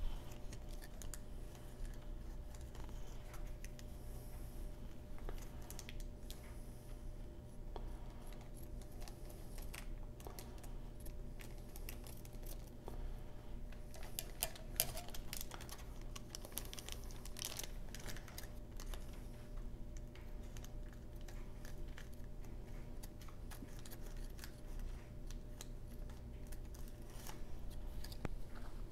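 Scissors snipping through a card pack's waxed-paper wrapper, with crinkling of the wrapper as it is handled. Small clicks and rustles are scattered throughout, and a louder run of snips and crinkles comes about halfway through.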